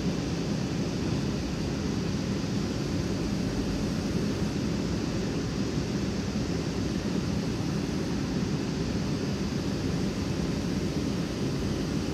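Renfe class 447 electric multiple unit standing at the platform, its on-board equipment running with a steady, even low rushing hum.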